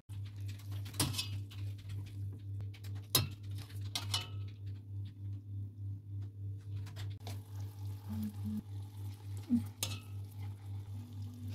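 Metal tongs clinking against a stainless steel cooking pot a few times while a roast of meat is handled inside it, over a steady, gently pulsing low hum.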